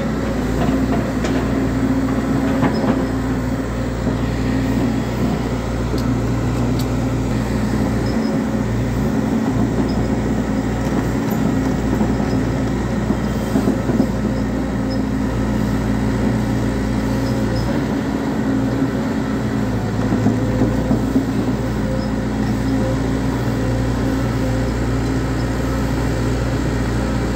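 Volvo EC210D crawler excavator's diesel engine running under load while its steel tracks clank and rattle over rocks as it climbs a ramp. The engine pitch shifts a couple of times, with sharp clanks about halfway through and again near two-thirds of the way.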